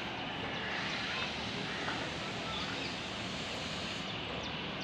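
Steady rushing background noise with a faint bird chirp near the end.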